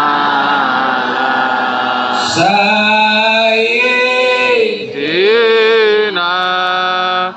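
Selawat, Arabic devotional chant in praise of the Prophet, sung by a male voice through loudspeakers. It comes in long held, sliding melodic phrases with short breaks between them.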